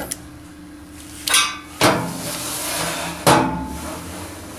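Metal parts of a charcoal grill being handled: a short scrape, then two sharp metallic clanks about a second and a half apart, the second one ringing briefly.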